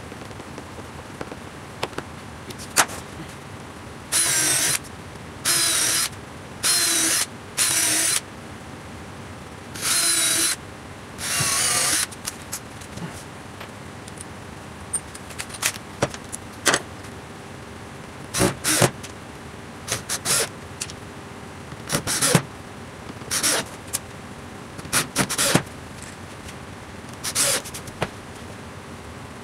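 Makita cordless drill-driver run in six short bursts, driving screws into stacked plywood forming pieces. Scattered knocks and clicks of wood and tools being handled on the bench follow.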